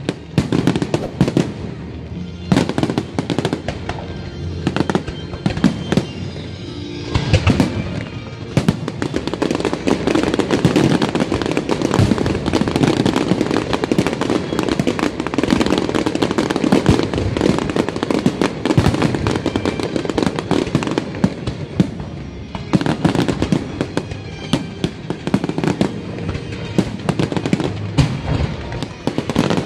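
Large fireworks display: aerial shells bursting in quick succession with repeated sharp bangs and crackle, densest in the middle stretch. Music plays along underneath.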